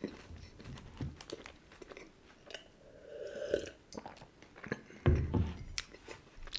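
Close-miked chewing and crunching of chocolate-filled sandwich cookies, with a few gulps from a glass mug about three seconds in and a dull thump about five seconds in.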